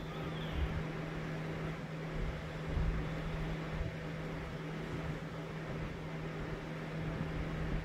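Steady low hum with an even hiss, the sound of a running fan or household appliance, with a few soft low bumps.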